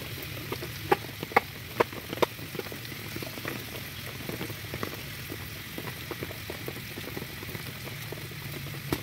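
Meat cooking in liquid in a frying pan on a portable gas stove, bubbling and sizzling steadily, with a few sharp spattering pops between about one and two seconds in and smaller crackles after.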